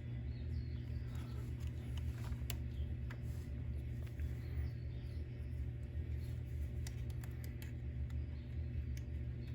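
Faint, scattered clicks and light scraping of small plastic and metal parts being handled while refitting the rear shocks and suspension of a Wltoys 144001 RC car, over a steady low hum.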